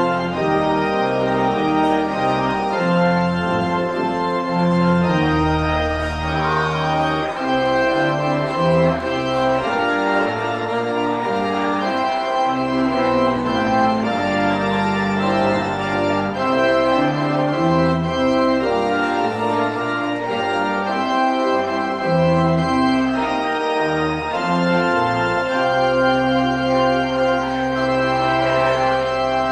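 Church organ playing a continuous piece of sustained chords over a bass line that moves every second or so.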